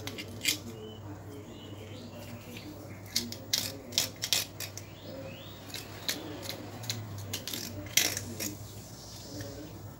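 Metal spoon handle scraping inside a small tilapia's belly cavity, clearing out blood and the dark lining, with sharp clicks and taps as the metal knocks against the fish's ribs and the plastic bowl. There is a cluster of clicks in the middle and one loud click near the end.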